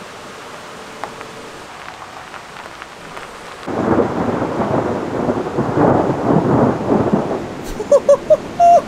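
Steady rain hiss, then about four seconds in a sudden loud thunderclap from a close lightning strike, crackling and rumbling for about four seconds. Short voice-like exclamations near the end.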